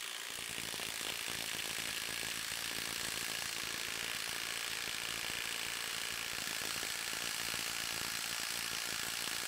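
DeWalt Atomic cordless impact wrench hammering continuously at full output in reverse against a steel bolt in a torque-test fixture, a dense, even rattle of rapid impacts. It starts suddenly.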